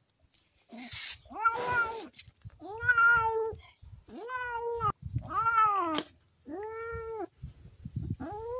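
Tabby kitten meowing over and over, about six drawn-out meows each under a second long, the second one rough and raspy.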